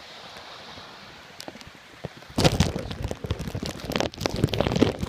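A steady hiss of rain and runoff water. From about two seconds in it gives way to loud, irregular rumbling and crackling from wind and handling on the microphone.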